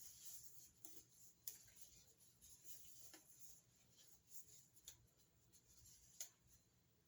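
Near silence: faint room hiss with a few soft handling clicks and rustles, the sharpest about a second and a half in and again near the end.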